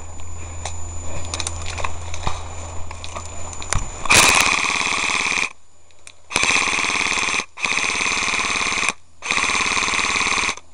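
Footsteps and rustling through dry brush and twigs for about four seconds. Then an airsoft gun fires four long full-auto bursts at close range, each about a second or so, each a fast buzzing rattle.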